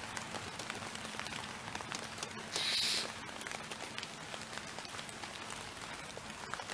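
Steady rain falling, with many drops ticking close by, and a brief louder hiss about two and a half seconds in.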